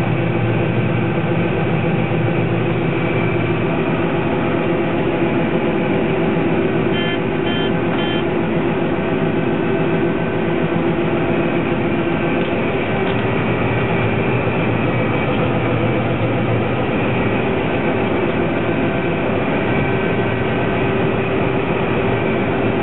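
John Deere 9750 STS combine harvester working in a wheat crop: a loud, steady diesel-engine and machinery drone with a constant hum. Three short high beeps sound about seven seconds in.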